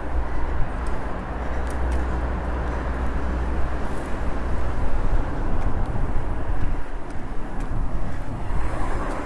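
Wind rushing over the microphone of a moving bicycle, with road noise: a steady low rumble and hiss, the rumble easing about two-thirds of the way through.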